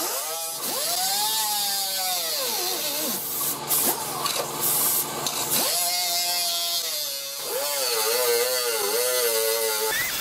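Air die grinder with a small cut-off wheel whining as it cuts into a fiberglass bumper cover. Its pitch sags and picks up again several times as the wheel bites into the material and comes free.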